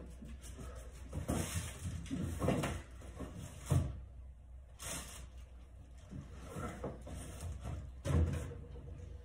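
Rummaging in an open refrigerator: containers knock and clatter against the shelves, with some rustling between the knocks. Near the end there is a heavier thud, the fridge door being shut.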